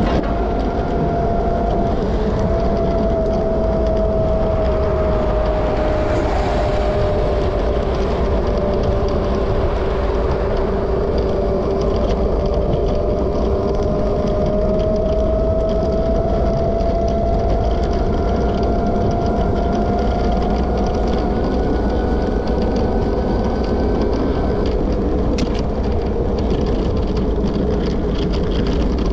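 Steady motor whine that drifts slowly in pitch, over low rumble and wind noise, from a small vehicle in motion.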